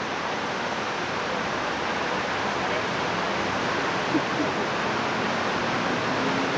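A steady rushing noise, even from low to high pitches, with a small brief tap about four seconds in.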